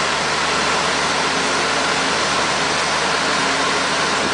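A heavy machine's engine running steadily under a loud, even hiss, with a faint low hum and no change in pitch or load.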